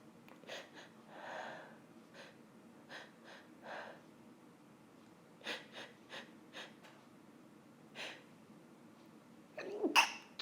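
A woman sniffling and taking short breaths while pepper she has sniffed tickles her nose, with a few small clicks between them. Near the end comes a sharp, loud gasping breath in as a sneeze builds.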